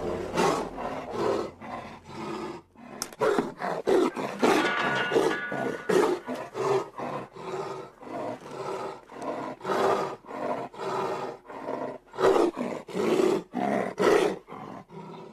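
Young Siberian tiger cub snarling and growling in a rapid run of short, harsh bursts, with a brief lull about two and a half seconds in.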